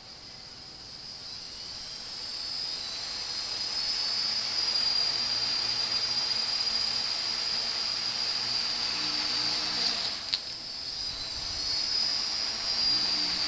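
Homemade Arduino quadcopter's electric motors and propellers spinning up: a high whine that climbs in pitch and grows louder over the first few seconds, then holds steady. A short sharp tick about ten seconds in.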